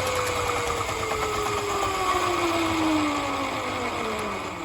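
Black & Decker 230 V mains drill running a homemade wood lathe, slowing down as a plug-in dimmer switch turns its speed down: the motor's whine falls steadily in pitch and gets quieter near the end.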